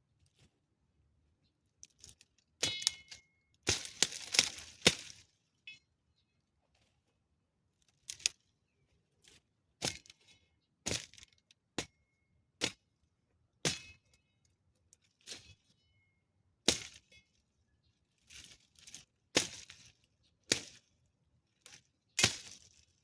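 Twigs and branches being cut and snapped: irregular sharp cracks, roughly one a second, a few with a short metallic ring.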